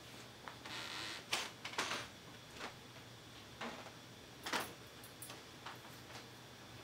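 African grey parrot making faint, irregular sharp clicks, about eight over several seconds, with a short breathy hiss about a second in.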